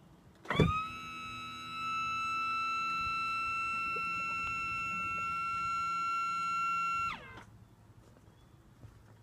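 A single held musical note, electronic or guitar-like, opens the intro. It sweeps up in pitch with a sharp attack about half a second in, holds steady for about six seconds, then slides down in pitch and dies away.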